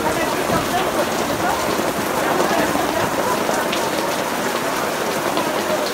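Heavy rain pouring steadily onto a tent canopy and wet paving, with a few louder individual drops.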